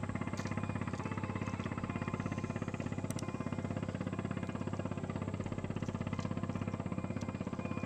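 A small engine running steadily, with a fast, even beat that does not change in speed or loudness.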